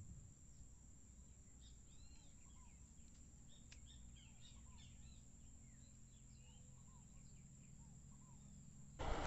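Faint birds chirping and calling in scattered short notes over a quiet natural background with a steady high insect whine. Near the end it cuts suddenly to loud rushing noise.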